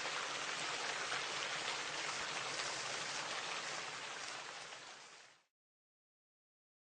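Rain falling, a steady patter that fades out about five seconds in.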